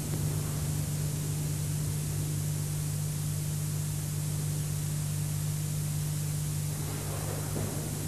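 Steady hiss with a low electrical hum underneath, from the recording and the tunnel's lighting, with no distinct events.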